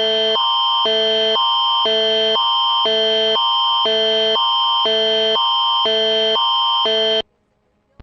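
Canadian emergency alert attention signal: a loud electronic tone that switches between a higher chord and a lower chord about every half second over a steady high note. It cuts off abruptly about seven seconds in.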